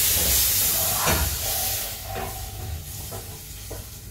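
A pan on the stove hisses and sizzles loudly, starting suddenly and dying down over about two seconds. A few light knocks follow.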